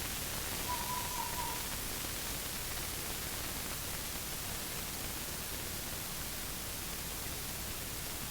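Steady hiss of a trail camera's microphone, with one short faint tone about a second in.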